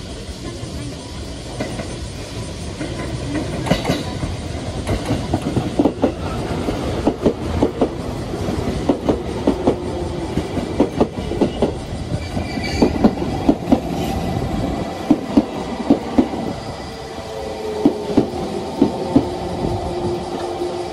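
A train running on the rails, its wheels clacking over rail joints in a quick, uneven series of clicks, with a steady tone joining in during the second half.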